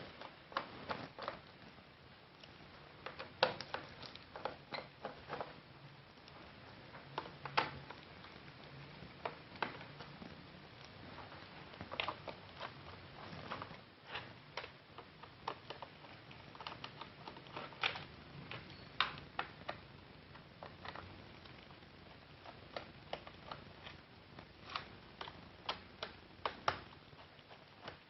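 Scattered light clicks and taps of a screwdriver and small screws on the plastic bottom cover of an ASUS X453 laptop as the cover screws are taken out, coming irregularly, a few at a time.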